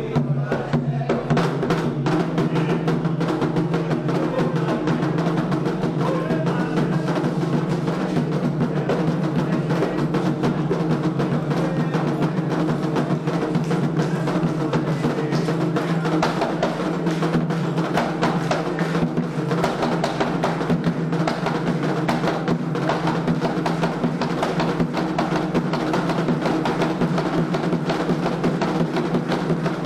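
Candomblé ritual drumming on atabaque hand drums: a fast, continuous rhythm that keeps going without a break.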